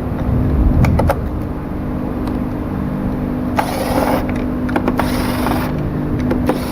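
Screws being worked out of a self-balancing scooter's plastic cover with a screwdriver: scattered small clicks and two short bursts of scraping, about three and a half and six seconds in.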